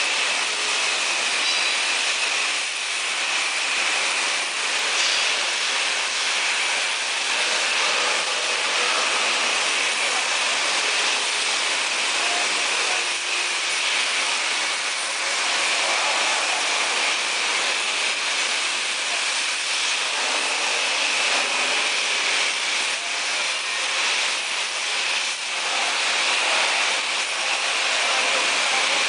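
Oxy-fuel cutting torch on a CNC flame cutting machine hissing steadily as it cuts through mild steel plate: a constant rushing hiss with a slightly shrill edge.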